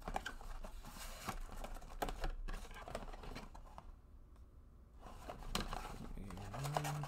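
Cardboard box flaps being pried open and torn by hand, with scratchy rustling, tearing and small clicks, easing off for a moment about four seconds in before more rustling.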